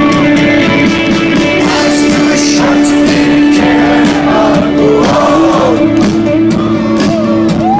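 Rock band playing live: a held chord that shifts to a new one about five seconds in, steady drum hits, and a wavering sung vocal line.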